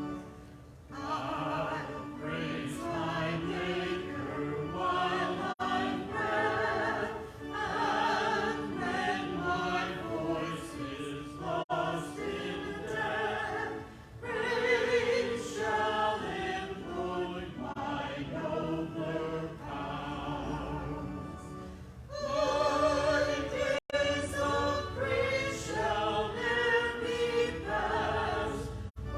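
Choir singing an offertory anthem with musical accompaniment.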